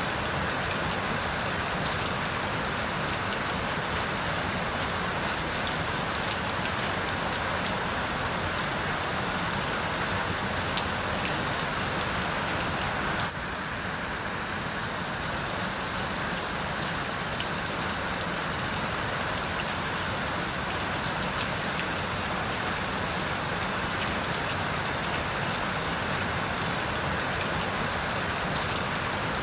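Steady rain falling, a continuous hiss with many fine drop patters. The level drops slightly and suddenly about halfway through.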